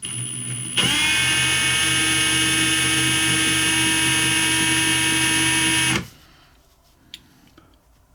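Small electric drill spinning up about a second in, then running steadily at high speed with a high-pitched whine for about five seconds before stopping suddenly.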